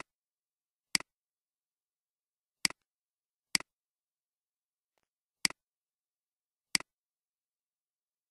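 Computer mouse clicks: five short clicks at uneven gaps of one to two seconds, each a quick press and release, with silence between.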